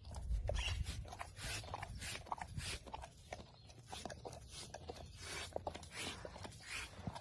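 Black panther lapping water from a trough close to the microphone: a steady run of short wet laps, about two to three a second, with a low rumble in the first second.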